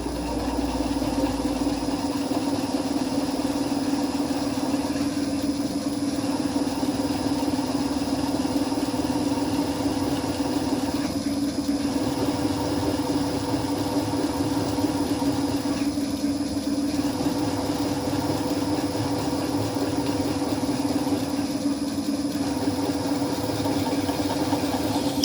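Retrofitted Tobin-Arp guide machine running steadily, its core drill boring out a worn valve guide in a cast-iron Oldsmobile V8 cylinder head. The motor gives an even hum over a constant cutting noise.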